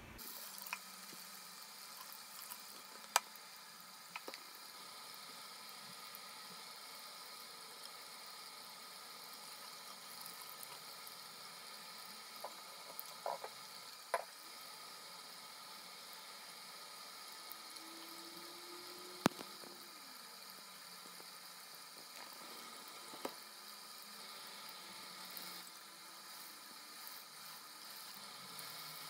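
Bathroom sink tap running in a faint, steady stream, with a few sharp clicks.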